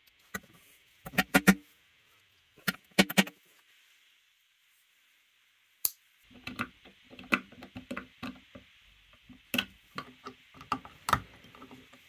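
Metal clicks and clinks from the Giriaitus 7-in-1 multitool as it is handled and its wrench is tried on bolt heads: two short clusters in the first few seconds, then a denser run of clicks from about six seconds in.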